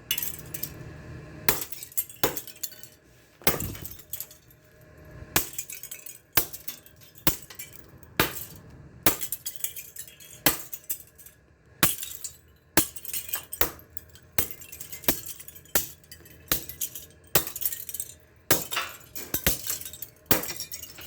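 Brittle old plastic box fan grill being smashed into pieces: a run of sharp cracks, about one a second, each with the clatter and clink of shards scattering. The plastic shatters like glass.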